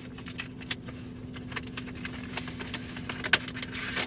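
Paper rustling and crinkling as a letter and its envelope are handled and unfolded, with small scattered clicks and one sharper snap a little over three seconds in, over a steady low hum.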